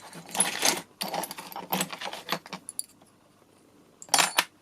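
Small metal Allen (hex) keys clinking and rattling together as they are handled, a quick run of light clicks, then a short, louder clatter about four seconds in.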